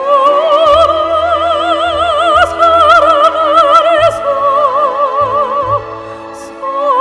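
Amateur soprano singing long, held notes with a wide, even vibrato over an accompaniment. The pitch changes about four seconds in, and a new note begins just before the end after a brief drop.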